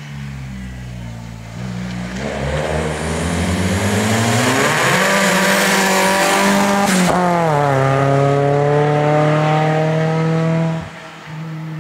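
Opel Astra Turbo rally car engine under hard acceleration, its revs climbing steadily. The revs drop sharply at a gear change about seven seconds in, climb again, then fall suddenly as the driver lifts off near the end.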